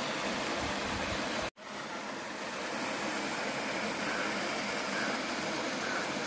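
Steady rushing of flowing water. It cuts out abruptly for a split second about one and a half seconds in, then carries on.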